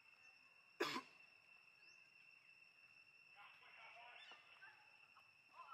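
Near silence with a faint steady high tone, broken about a second in by one short, sharp burst of noise, the loudest sound here.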